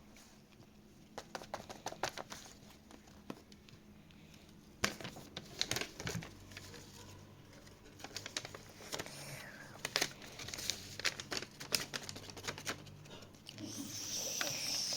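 Crinkling and crackling handling noises, scattered irregular crackles that grow busier about five seconds in, with a short breathy hiss near the end.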